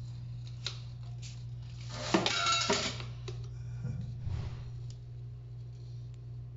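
Metal caulking gun clicking and rattling as its trigger is worked to push out a bead of silicone sealant, with a louder clatter about two seconds in that lasts about a second, over a steady low hum.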